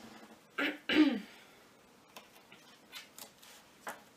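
A person clears their throat once, a short two-part rasp ending in a brief falling voiced sound. A few faint light ticks follow.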